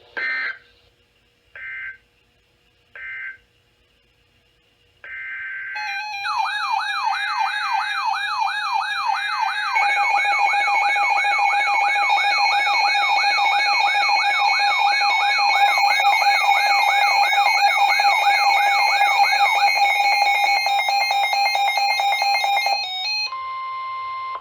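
Emergency Alert System signalling on a weather radio broadcast. Three short screechy digital data bursts come about a second and a half apart, then another burst. An alarm follows for about seventeen seconds: a warbling sweep rising and falling about twice a second over steady tones. It ends with a brief single steady tone.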